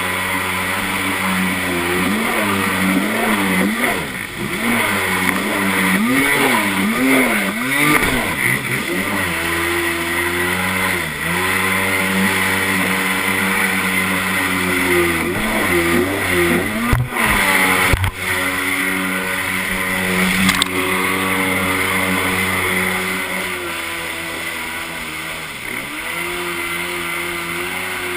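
Kawasaki JS440 stand-up jet ski's two-stroke engine running under way, its pitch rising and falling with the throttle several times in the first eight seconds and again past the halfway point, otherwise holding steady, over a steady rushing hiss.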